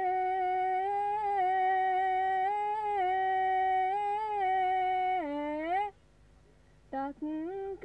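A solo voice singing a Sinhala song unaccompanied into a microphone, holding long, slightly wavering notes. About five seconds in the note dips and slides back up, then breaks off for about a second before the singing resumes.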